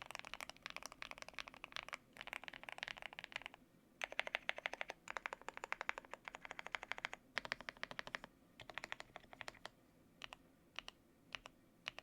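Typing on a custom GMK87 mechanical keyboard with lubed Akko Matcha Green Pro switches and Cherry-profile keycaps: fast runs of key presses in bursts with short pauses, slowing to a few single keystrokes near the end.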